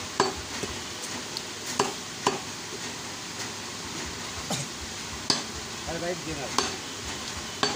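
Butcher's knife knocking against a wooden chopping block as beef is cut: several sharp knocks at irregular spacing over a steady hiss.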